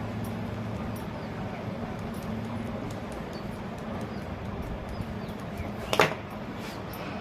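Small metal clinks and ticks from fan parts being handled during reassembly, with one sharp click about six seconds in, over a steady low hum.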